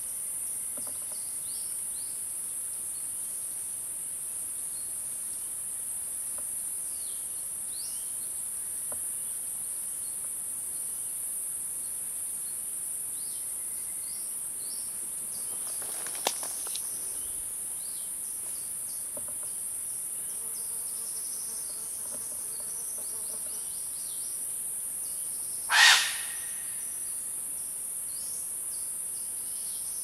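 Forest ambience: a steady high-pitched insect drone with scattered short bird chirps. A sharp click comes a little over halfway through, and near the end there is one short, loud call from an animal that could not be identified, whether bird or mammal.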